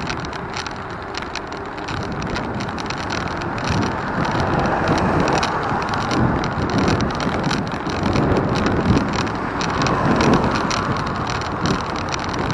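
Steady rushing wind and road noise while on the move, with small rattles, growing louder about three or four seconds in.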